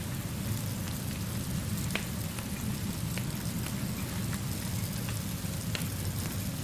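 Steady rainfall from a rain-and-fireplace ambience mix, with a constant low rumble underneath and a few sharp, isolated ticks scattered through it.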